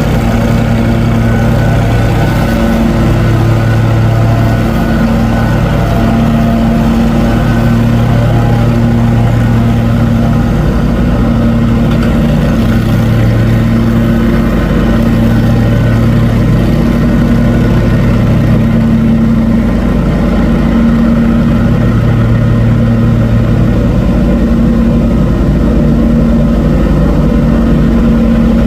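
A motor engine running steadily at an even speed, with no let-up.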